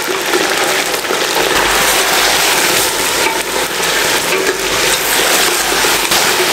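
Raw mutton pieces sizzling in hot oil with whole spices in a stainless steel pressure cooker as they go in and are stirred with a steel ladle, a loud steady frying hiss.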